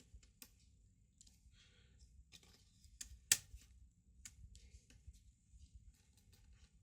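Faint scattered clicks and taps of a laptop's parts being handled while it is taken apart, with one sharper click about three seconds in.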